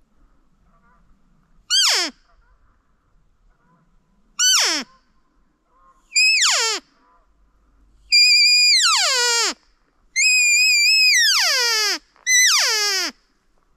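Elk mews, six in a row: high, whistly calls that slide steeply down in pitch. The first three are short; the later ones hold a high, wavering note for about a second before dropping, the way a cow elk's drawn-out whine does.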